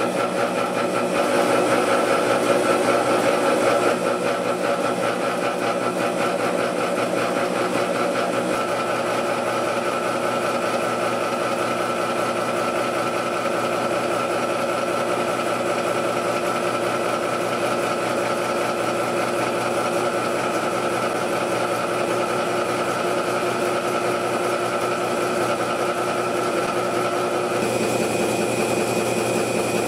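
CNC gear-cutting machine running, its cutter head milling teeth into a large bevel gear: a steady mechanical drone made of several held tones. A higher tone joins near the end.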